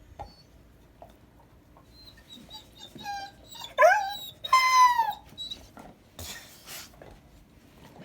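A dog whining: faint short whines, then a loud rising whine about four seconds in and a longer high whine right after that sags slightly at the end. The dog is whining for the other dog's bone. A brief rustle follows.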